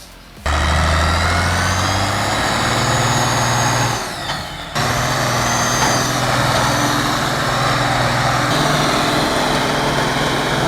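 Ursus 1614 tractor's diesel engine running hard under load while hauling logs, its note rising about two seconds in. It breaks off briefly near four seconds, then runs on steadily.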